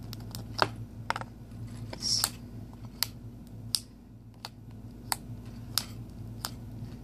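Light, sharp clicks and taps at irregular intervals, roughly one or two a second, over a steady low electrical hum.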